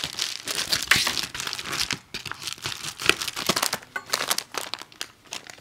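Plastic and paper packaging crinkling and tearing as it is unwrapped by hand: a dense run of irregular crackles, louder in the first two seconds.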